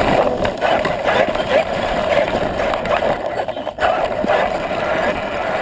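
Onboard sound of a Traxxas E-Revo brushless RC truck driving fast over grass: steady motor and drivetrain noise mixed with wind and rattling knocks from the bumps. The sound briefly drops about three and a half seconds in.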